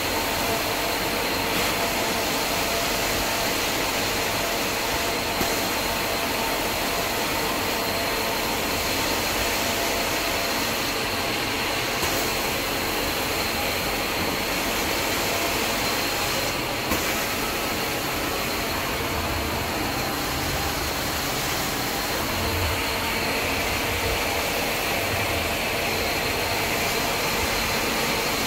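Carpet extraction machine running: a steady rushing suction noise with a thin high whine.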